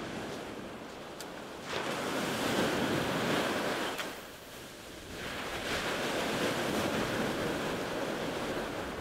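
Ocean surf washing onto the beach. Two swells of wave noise, the first coming in a little under two seconds in and the second after a short lull around the middle.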